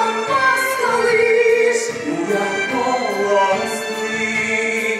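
A woman singing a musical-theatre song in an operatic style into a microphone, accompanied by a live orchestra.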